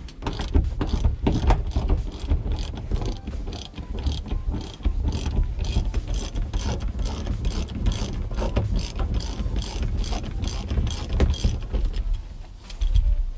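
Socket ratchet wrench clicking rapidly and repeatedly as it backs out a bolt through the floor of a pickup cab.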